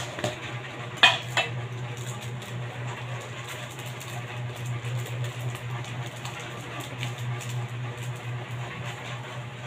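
Two sharp metallic clinks of kitchenware about a second in, a fraction of a second apart, over a steady low hum.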